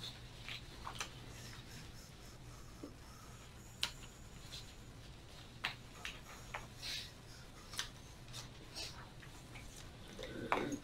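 Scattered faint clicks and soft rustles of a computer keyboard and mouse over a steady low room hum, the sharpest click about four seconds in.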